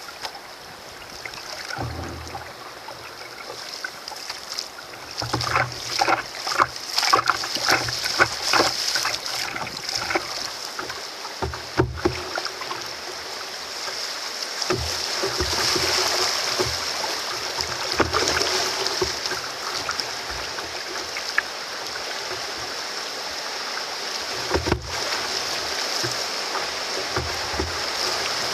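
River rapids rushing around an open canoe, with a run of splashes and knocks in the first third, then a steady, fuller rush of whitewater.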